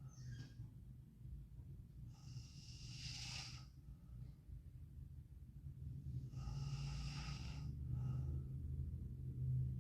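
Sleeping girl snoring and breathing heavily: two long, airy breaths about four seconds apart over a low steady drone.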